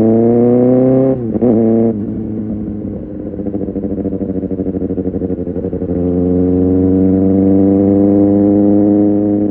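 Kawasaki Ninja ZX-6R inline-four through an Arrow Pro Race exhaust, under way. The revs climb, then drop sharply about a second in, as at a gearchange. The engine runs lower with a pulsing note for a few seconds, then pulls up again from about six seconds in and holds steady.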